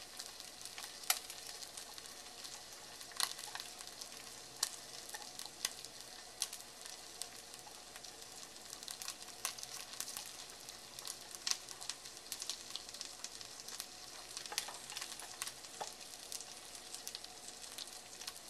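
An egg and a roasted bell pepper ring frying in olive oil in a pan: a steady high sizzle with frequent, irregular sharp pops and crackles.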